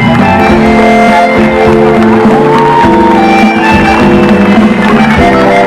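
Live concert music from a band on stage, loud and steady with held, sustained notes.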